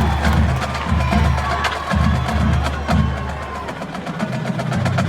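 Marching band drumline playing a cadence: low bass-drum strokes about twice a second under sharp stick and rim clicks.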